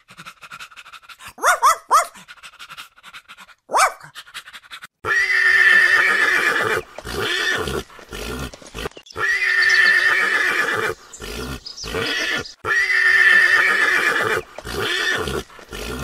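A few short, high gliding calls in the first seconds. From about five seconds in, a horse neighs: several long, loud whinnies with a wavering pitch, one after another.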